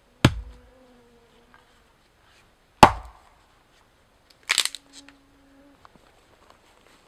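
Two axe strikes splitting a short log on a chopping block, a sharp crack each time about two and a half seconds apart, the second the louder. A brief clatter of split wood being handled follows.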